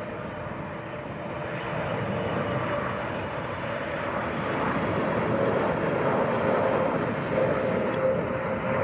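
Boeing 777-300ER's GE90 jet engines at approach power as the airliner comes in on final approach, a steady jet rumble that grows louder throughout. A whining tone runs through it and sinks slightly in pitch near the end.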